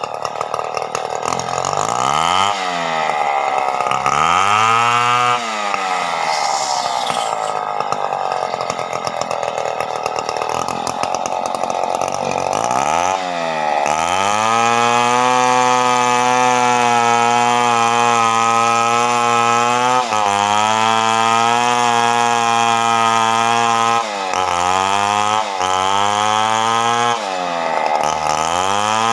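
Stihl 070 two-stroke chainsaw running hard. Its pitch drops and climbs back twice in the first few seconds, then holds steady and lower for about ten seconds as the saw works under load through teak. It dips and revs again near the end.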